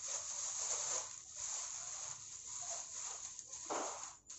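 Faint rustling and rubbing of plastic headphones being turned over in the hands, with one short scrape near the end, over a steady background hiss.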